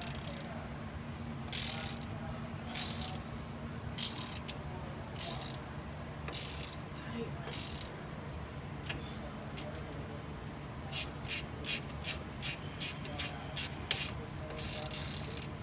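Hand ratchet and socket tightening the U-bolt nuts on a leaf-spring mounting plate, clicking in bursts as the handle swings back. The strokes are longer and about a second apart at first, then short and quick at about three a second in the second half, over a steady low hum.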